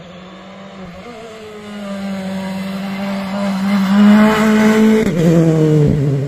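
Rally car engine held at high revs, growing steadily louder as the car approaches and loudest about four seconds in. A little after five seconds the engine note drops sharply.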